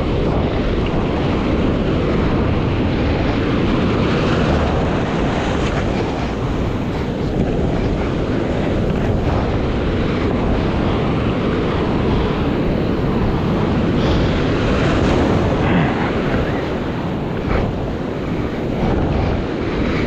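Loud, steady wind rumble on a point-of-view camera's microphone, mixed with the wash of small ocean waves around a stand-up paddleboard.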